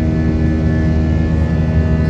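Twin-engine Airbus A320-family jet airliner heard from inside the cabin while climbing after take-off: a steady engine drone with several unchanging tones layered over it.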